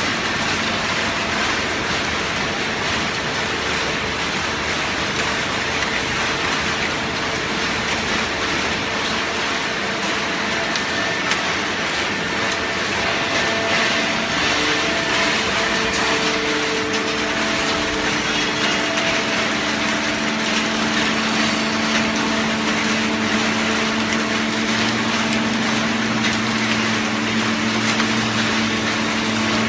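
Cardboard auto-tie baler running: a steady mechanical noise from its hydraulic power unit, with a few held humming tones. A deeper, stronger hum comes in about two-thirds of the way through.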